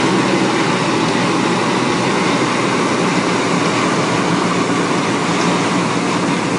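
Combine harvester running steadily while it unloads on the go into a grain cart pulled alongside: a continuous machinery drone with a low engine hum under it.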